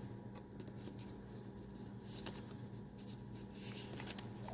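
Faint rustling and a few light ticks of heavy paper pages and cardstock being turned and handled in a handmade junk journal, over a steady low hum.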